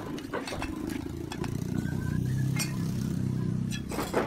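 A motor vehicle engine running close by, swelling in the middle and easing near the end, with a few sharp clinks of steel trowels on brick and mortar, the loudest near the end.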